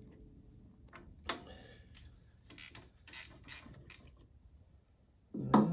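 Ratchet wrench clicking in short runs as it loosens the bolts on a Listeroid diesel's cast-iron crankcase inspection cover, with a louder clunk near the end.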